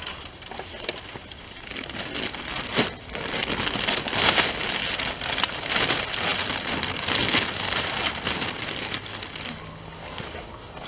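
Plastic sack crinkling as soil is poured from it into a planting hole, with loose earth pattering down. It builds about two seconds in, is loudest in the middle and dies down near the end.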